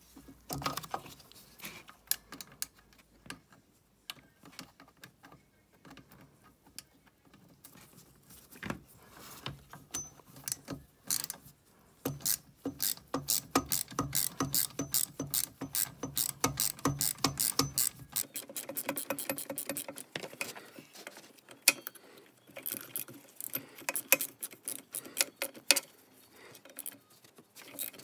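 Socket ratchet wrench clicking in runs of fast clicks as the long screws holding a pocket bike's intake manifold and reed valve are undone. The clicks are sparse at first and come in steadier runs with short pauses from about halfway through.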